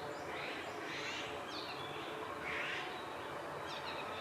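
Male Japanese sparrowhawk calling for its mate: a series of short separate calls about a second apart, over steady woodland background noise.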